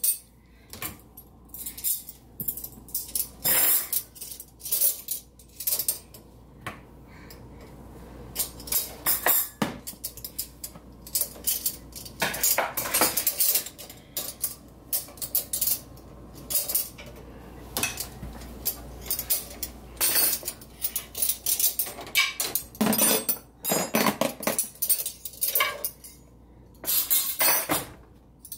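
Metal forks and spoons clinking against each other and the wire cutlery basket of a dishwasher as they are pulled out one by one, in many irregular clinks and clatters.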